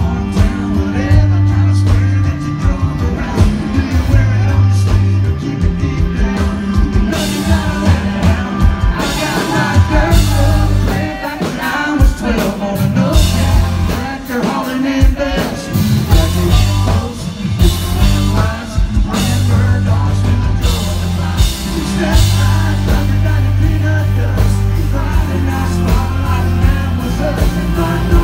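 Live country-rock band playing loud: a male lead singer over electric guitar, bass and drums, with a heavy, steady low end and a regular beat.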